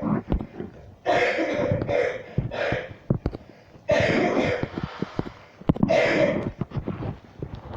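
A woman coughing repeatedly: three coughs in quick succession about a second in, then two more further apart later on.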